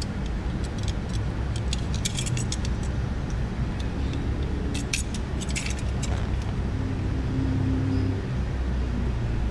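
Light plastic clicks and rattles from small trim pieces being handled and worked with a plastic pry tool, in scattered bunches, over a steady low rumble.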